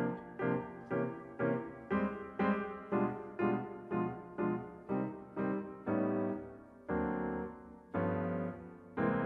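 Grand piano playing jazz chords, struck about twice a second and left to ring, then slowing to chords held about a second each in the last few seconds.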